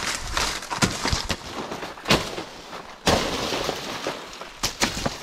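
Rustling of leaves and undergrowth with several sharp cracks and knocks scattered through, the loudest about three seconds in.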